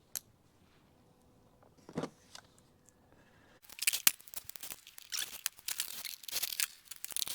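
Hand tools and metal parts being handled: a click, a thump about two seconds in, then from about halfway through a busy run of rattling, clicking and scraping.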